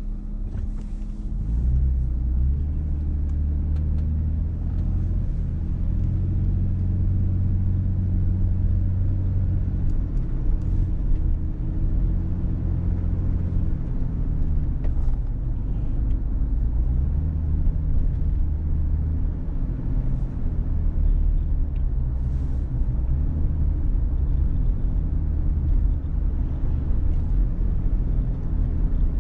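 Car driving on city streets: engine and road noise as a low drone whose pitch shifts as the car speeds up and slows down, getting louder about two seconds in.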